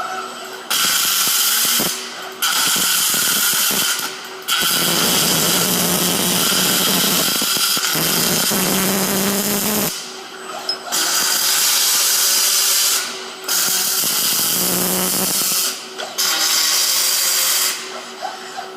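MIG welding arc crackling and hissing in six bursts, the longest about five seconds, stopping and restarting with short gaps between them. A steady faint hum runs underneath.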